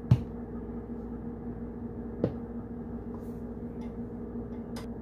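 A plastic squeeze bottle of cooking oil set down on the counter with a sharp knock, then a second, softer knock about two seconds later, over a steady low hum.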